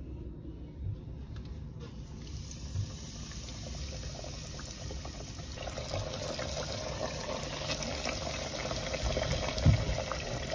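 Breaded catfish fillets frying in hot canola oil in a deep fryer: the oil sizzles and bubbles, starting about two seconds in and getting louder around six seconds in as the fish goes in. A low knock near the end.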